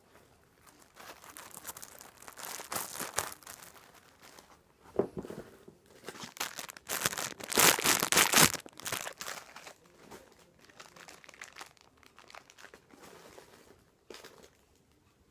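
Plastic packaging crinkling and rustling as it is handled, in irregular bursts, loudest about seven to eight seconds in.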